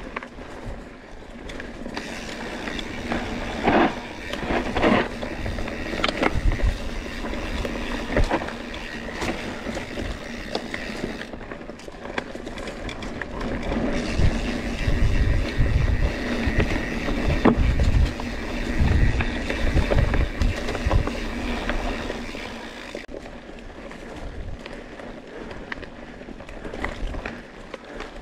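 Scott Spark RC full-suspension mountain bike ridden over dry dirt singletrack: tyres rolling on dust and stones, with sharp knocks and rattles as the bike hits bumps. Wind buffets the camera microphone in heavy low gusts through the second half.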